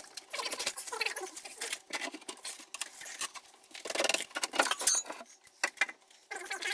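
Quick runs of metallic clicking from a hand ratchet undoing the gearbox bell-housing bolts, in irregular spells with brief pauses, busiest about four to five seconds in.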